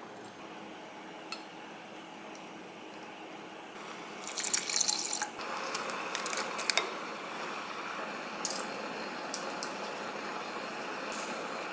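Water poured into a saucepan of noodle sauce, a loud splashing pour about four seconds in, then the pot simmering with a steady hiss and scattered light clicks.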